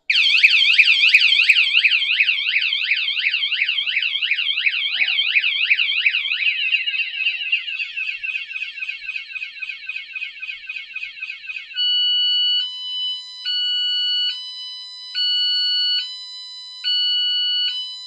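KCMYTONER vibration-sensing bike alarm going off, set off by the bicycle being moved. It runs a fast warbling siren for about six seconds, then a quicker chirping warble, then from about twelve seconds in switches back and forth between two steady tones a little under once a second.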